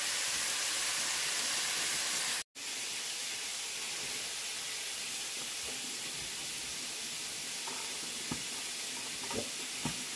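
Food sizzling as it cooks: a steady hissing sizzle, broken by a sudden brief gap about two and a half seconds in, with a few faint knocks near the end.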